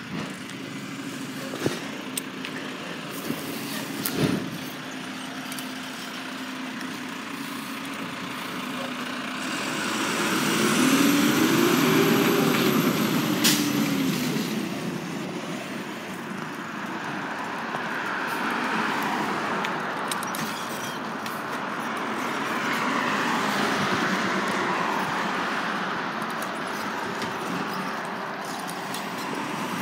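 Garbage truck's diesel engine pulling away and driving off. Its note rises and then falls between about ten and thirteen seconds in, the loudest part, followed by steady engine and road noise that swells and eases as the truck moves off.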